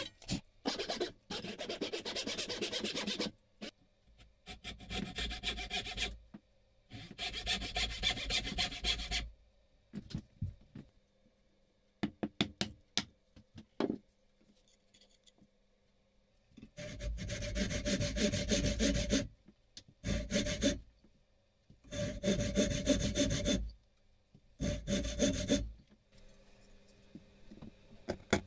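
Backsaw cutting into a beech plane body in several runs of back-and-forth strokes, with short pauses between the runs.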